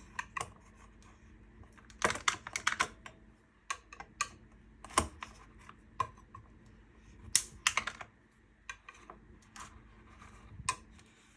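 Frozen cubes being popped out of a plastic ice cube tray: irregular sharp plastic clicks and knocks in small clusters.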